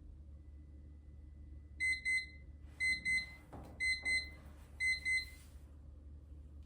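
Electronic timer alarm beeping: four pairs of short, high beeps about a second apart, the signal that the 45-minute timed work session is over.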